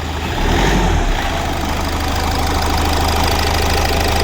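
Hyundai D4FB 1.6 L CRDi diesel engine idling steadily with an even, rapid diesel tick. It is freshly overhauled and now running smoothly, its earlier misfire and shaking gone.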